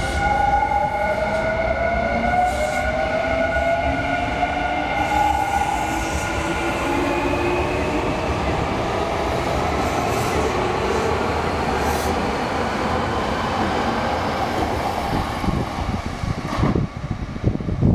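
Nankai electric commuter train accelerating past, its motor whine rising in pitch over the first several seconds above steady wheel-on-rail rumble. Near the end, low thumps of wind on the microphone take over.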